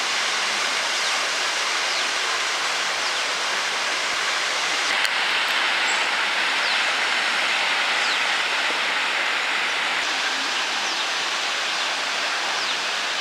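Waterfall pouring into a rock pool: a steady rushing and splashing of water.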